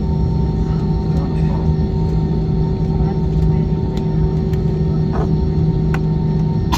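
Steady cabin drone inside an Airbus A320-232 on the ground, its engines idling, with a low hum and a few light clicks.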